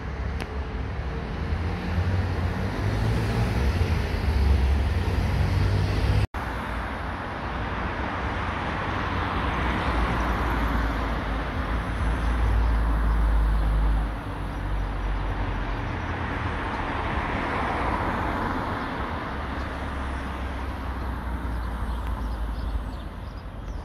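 Outdoor vehicle and road traffic noise as a Bombardier Flexity 2 tram approaches, with low wind rumble on the microphone. The sound cuts out briefly about six seconds in, then the traffic noise goes on, swelling and easing twice.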